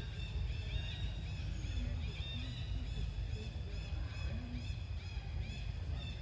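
Steady low rumble with many short, high chirping calls repeating throughout, like birds calling in the surrounding forest.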